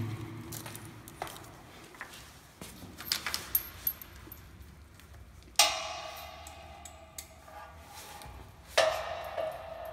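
Light metallic clicks of screws and a screwdriver being handled. Then come two sharp knocks on metal, about halfway through and near the end, each leaving the plotter's metal stand ringing with a tone that dies away over a couple of seconds.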